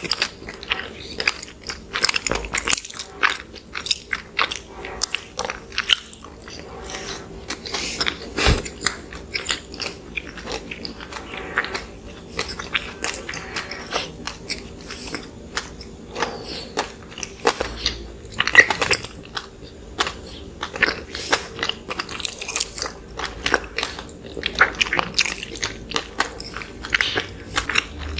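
Close-miked eating sounds: biting into and chewing soft, fluffy cinnamon rolls, with many quick irregular mouth clicks.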